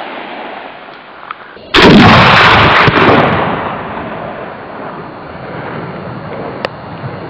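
A single shot from a 20 mm Sarac semi-automatic rifle firing a 20/110 mm round: a very loud, sudden report a little under two seconds in, fading away over the next two to three seconds.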